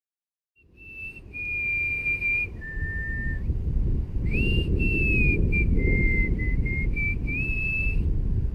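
A person whistling a slow tune: clear held notes that step and slide up and down in pitch for about seven seconds, over low wind rumble on the microphone. The sound starts abruptly about half a second in.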